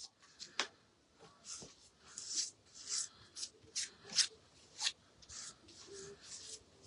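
Mod Podge being spread over a paper calendar page in short scratchy rubbing strokes, about two a second.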